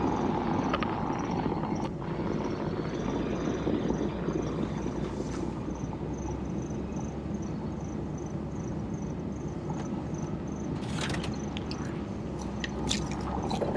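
1997 Land Rover Discovery's engine running steadily at low revs as it crawls through snow in low range with the diff locked, with a faint, high, regular ticking about twice a second. Near the end, a few sharp cracks and scrapes as brush and branches snap against the body.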